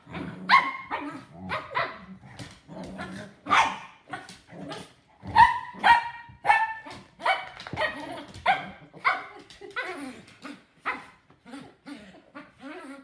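Dogs play-fighting, a Standard Schnauzer and two toy poodles, barking over and over in short sharp barks, with some low growling in the first couple of seconds.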